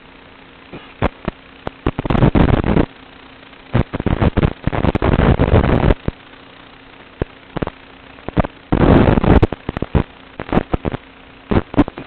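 Blade Vortex 250 Pro FPV racing drone's onboard audio: a steady low hum broken by irregular bursts of harsh, crackling noise, some brief, some lasting a second or two.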